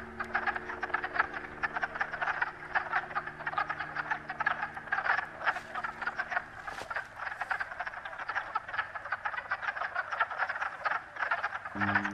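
A dense spring chorus of many frogs calling together, with rapid overlapping calls that run on without a break.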